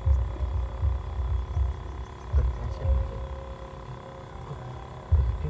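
Low rumbling gusts of wind buffeting the microphone, coming in uneven surges, over a faint steady hum.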